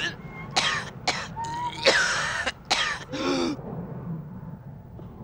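A person coughing hard, several harsh coughs in a row with strained, rasping gasps between them, dying down about three and a half seconds in.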